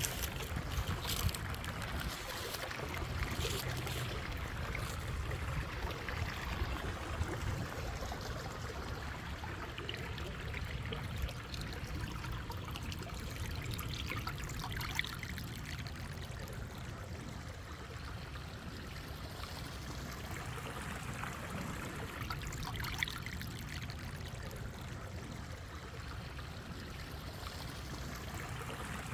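River water flowing steadily, a continuous trickle, with scattered light ticks and crackles, most of them in the first few seconds.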